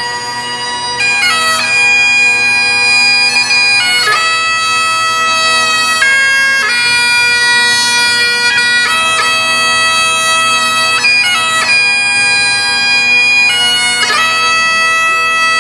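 Great Highland bagpipes playing a tune of long held notes over the steady drones.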